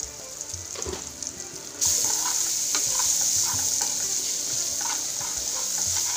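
Chopped tomatoes frying in hot oil in a pan, sizzling, while a spoon stirs them and scrapes against the pan. The sizzle jumps suddenly louder about two seconds in.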